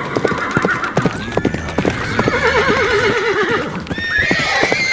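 Several horses, hooves clopping over and over while more than one horse neighs and whinnies, the calls overlapping, with a quavering whinny in the middle and another starting near the end.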